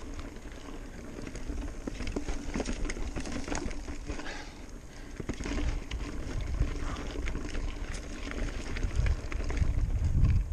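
Mountain bike running over a rocky dirt trail: a busy scatter of rattles, clicks and knocks from the tyres, chain and frame on rocks and roots, over a low rumble that grows louder near the end.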